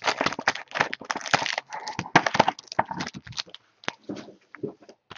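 Cardboard trading-card hobby box being opened and its foil-wrapped packs handled and set down: a busy run of crackles, crinkles and small clicks that thins out after about three and a half seconds.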